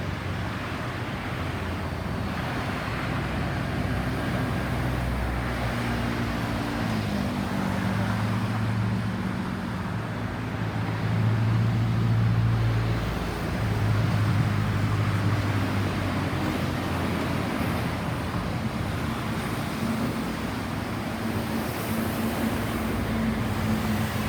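Road traffic noise with a nearby motor vehicle engine running, its low hum louder and shifting in pitch in the middle stretch; no siren is sounding.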